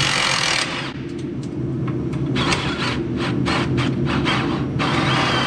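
Cordless power tool running in short bursts, then a quick run of clicking strokes, as it loosens the bolts on a race car's rear shocks and upper trailing arms.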